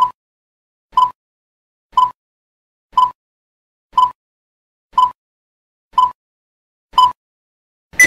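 Countdown timer sound effect: short, sharp ticks once a second, nine in all, the last one a little louder.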